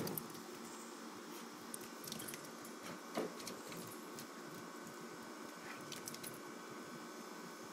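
A springer spaniel scampering in and around an empty plastic kiddie pool on a wooden deck: scattered light clicks and taps of paws and claws, with a louder bump at the start and another about three seconds in.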